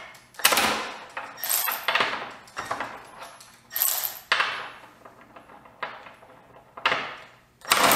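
Milwaukee M12 2457 cordless 3/8-inch ratchet run against a nut in several short bursts with metallic clattering, straining to break free a nut torqued to 25 ft-lbs; it takes a couple of tries, and the longest burst comes near the end.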